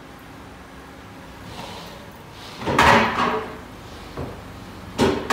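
Two heavy clunks: the first about three seconds in, with a short rattle after it, and a sharp knock near the end, over a low steady hum. They come as the minivan rolls across the service-bay floor plates.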